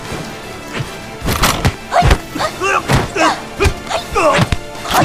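Staged film fight: a rapid series of punches and body blows landing with thuds, starting about a second in, mixed with the fighters' shouts and grunts, over background score music.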